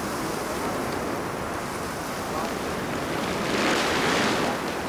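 Steady rushing of wind and street traffic. A car passes close by near the end, bringing a brief swell of tyre and engine noise.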